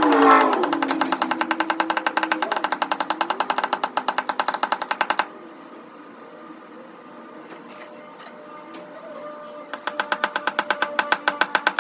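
Music with a fast, even ticking beat over held tones. The beat drops out for about four seconds midway, leaving quieter held tones, then comes back.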